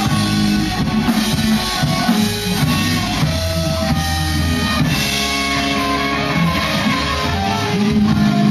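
Live rock band playing: electric guitar notes ringing over a low bass line, with light drums.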